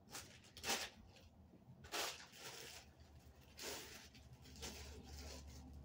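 Thin plastic mailer bags crinkling and rustling in several short bursts as clothes are pulled out and handled.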